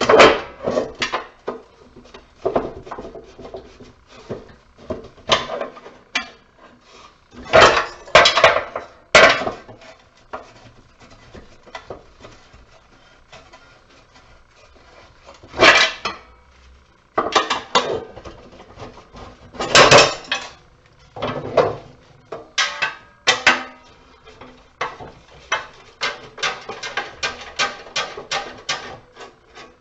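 Metal parts of a light fixture clanking and knocking as it is dismantled for scrap: irregular sharp clanks, the loudest ones grouped in short clusters, then a run of quick lighter taps, several a second, near the end.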